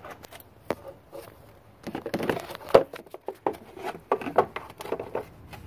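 Irregular plastic clicks, knocks and rustling as a new panel air filter is handled and fitted into the engine's plastic airbox.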